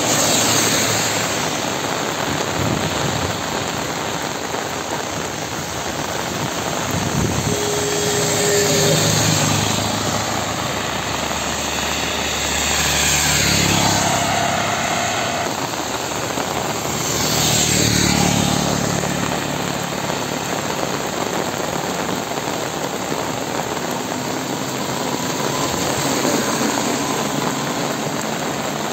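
Steady heavy rain with motor vehicles passing on a wet road, their engines and tyre hiss swelling and fading several times, most strongly a little before and after the middle.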